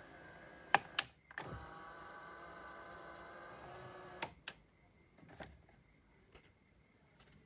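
A small electric motor in the car's interior runs steadily, with sharp switch clicks about a second in. It stops briefly, runs again for about three seconds, then stops with a couple of clicks, followed by a few fainter clicks.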